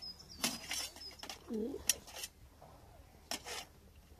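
Close handling noise from camp cooking gear at a small pocket stove: a few short rustling and scraping bursts and a sharp click a little before the middle.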